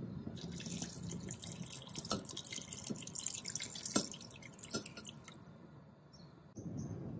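Water poured from a glass jug into a stainless steel stockpot, splashing onto the water already in the pot for about five seconds before it stops. A low steady noise comes in near the end.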